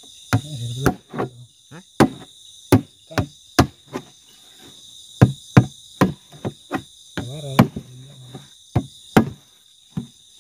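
About twenty sharp knocks at an uneven pace, like strikes on wood, over a steady high-pitched chorus of night insects.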